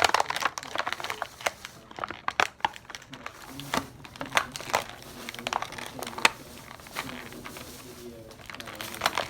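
Plastic toy packaging crinkling and crackling as it is bent and pried open by hand without scissors, in many irregular crackles.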